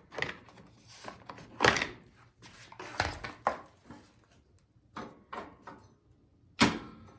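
A string of knocks, clicks and clunks from the belt cover of a snowblower being taken off and handled, with two louder clunks, about a second and a half in and near the end.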